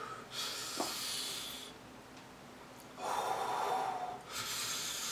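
A person breathing hard through the mouth in three long, hissing breaths, the first about half a second in and the last two close together near the end. The breaths are a reaction to the burn of very spicy food.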